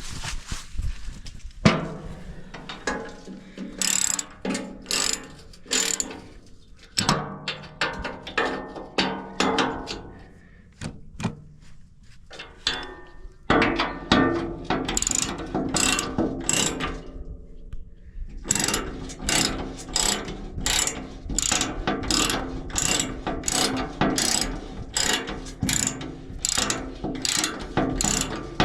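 Hand socket ratchet clicking as a nut or bolt is turned, in repeated strokes of about two a second with a couple of short pauses.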